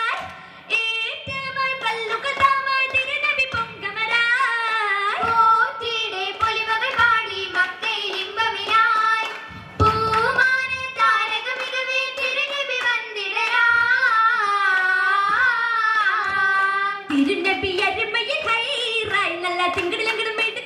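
Girls' voices singing an Oppana song (Mappila song) through a stage microphone, with a few sharp handclaps from the dancers. The singing pauses briefly about ten seconds in.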